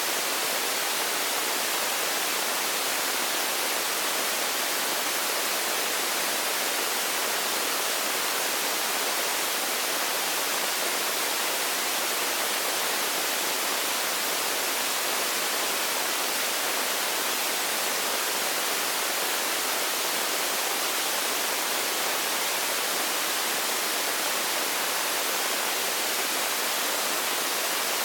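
Steady, unchanging hiss like static, strongest in the high range, with no other sound standing out of it.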